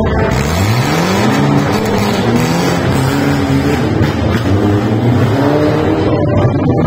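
A stunt vehicle's engine revving hard, its pitch climbing in several surges, the first about half a second in and more around four to six seconds in.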